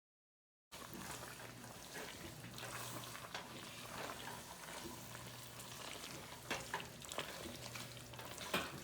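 Cream sauce cooking in a pan with a steady sizzle while a utensil stirs and scrapes it. There are a few sharper clicks of the utensil against the pan in the second half. It starts after a brief silent gap.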